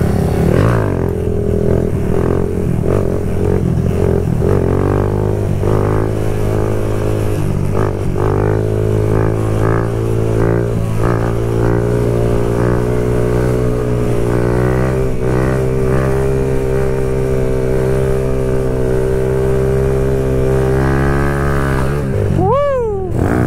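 Kawasaki Z125 Pro's 125cc single-cylinder four-stroke engine running through an aftermarket full exhaust while riding, its pitch rising and dropping with throttle and gear changes, then holding a long, nearly steady drone. Near the end the revs rise and fall sharply once.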